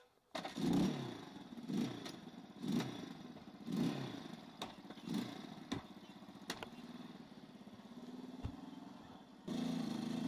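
Minsk X250 motorcycle's single-cylinder four-stroke engine starting, then revved in short blips about once a second. It settles to a steady idle and gets louder again about a second before the end.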